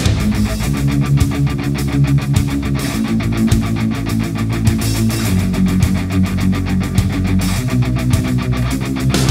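Heavy metal music: distorted electric guitar chords over a fast, driving drum beat.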